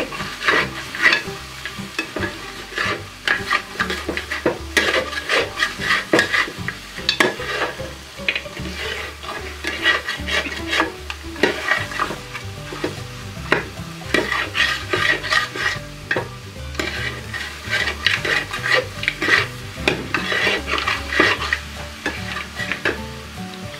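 A metal spatula stirs and scrapes chunks of meat around a wide metal pan, with a steady sizzle of the meat dry-frying in oil. Short scraping strokes come over and over: the meat is being turned as it fries down to a dry finish.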